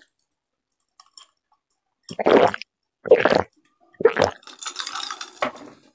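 Three loud gulps about a second apart as a person swallows a cold drink from a glass, then about a second of softer noise.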